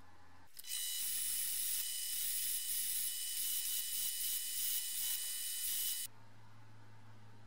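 Wire wheel brush spinning in a drill press, with a rusty brake caliper bleed screw held against it to scour off the rust: a harsh, high scratching over a steady whine. It starts suddenly about half a second in and cuts off about six seconds in.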